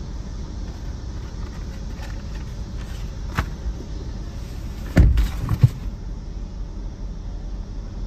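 Car idling with a steady low rumble; a sharp click about three and a half seconds in, then a heavy thump about five seconds in followed by two lighter knocks: the car's door being shut as someone gets in.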